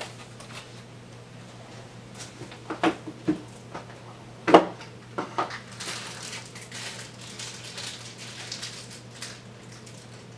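Packaging being handled as the telescope's finder scope is unpacked: a few knocks, the loudest about four and a half seconds in, then rustling from about six seconds on. A steady low hum runs underneath.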